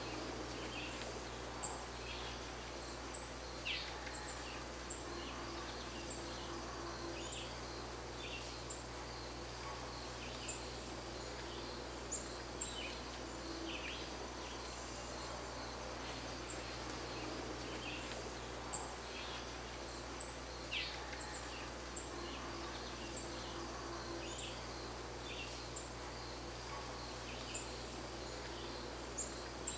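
Short, high bird chirps scattered irregularly, about one a second, over a steady outdoor background hiss.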